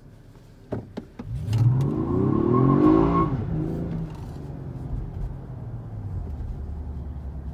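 2019 Toyota Avalon's 3.5-litre V6 breathing through a K&N Typhoon intake, heard from inside the cabin under hard acceleration from a near stop. The engine note climbs for about two seconds with a thin high whine riding on top, then drops back and settles into a steady drone as the car cruises. Two sharp clicks come just before the engine note rises.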